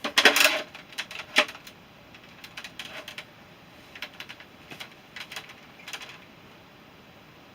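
Hard plastic clicks and clatter of a Nerf toy blaster being handled and primed. The loudest cluster comes at the start, one sharp click about a second and a half in, then lighter scattered clicks.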